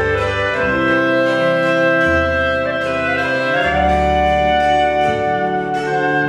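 Two clarinets play a folk-style melody together over held notes from a double bass and a church organ.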